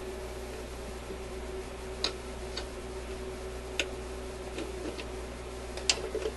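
Sharp metallic clicks and taps as small parts of a record-changer mechanism are handled and fitted back by hand: about seven, unevenly spaced, the loudest near the end. A steady hum runs underneath.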